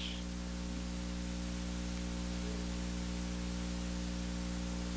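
Steady electrical hum, a stack of even unchanging tones, under a constant hiss.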